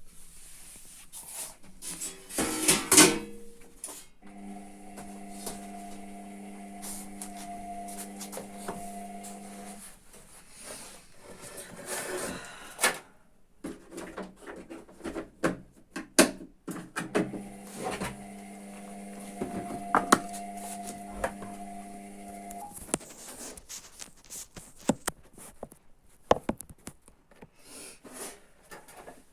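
Hotpoint Ariston ARSL100 washing machine running: its drum motor gives a steady pitched tone for about five seconds, stops, and runs again for about five seconds later on, with scattered knocks and clatter throughout. A louder burst of noise comes a few seconds in.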